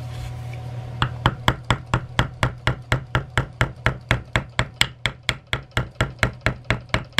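A mallet strikes a metal oak-leaf leather stamp in a fast, even rhythm of about four blows a second, starting about a second in, driving the oak-leaf impression deeper into the sheath leather.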